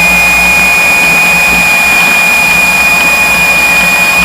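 Piper Seneca's twin piston engines running at low taxi power, heard as a steady drone through the headset intercom, with a thin steady high-pitched whine over it.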